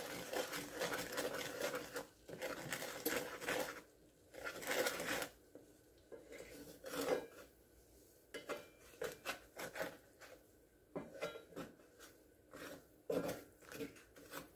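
Slotted wooden spatula scraping and pressing against a cast-iron skillet, mashing flour into melted butter to make a roux. The sound is irregular scrapes and taps with short pauses between them.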